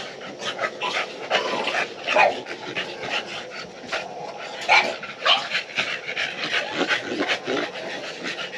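Bulldogs panting in quick, repeated breaths, several a second.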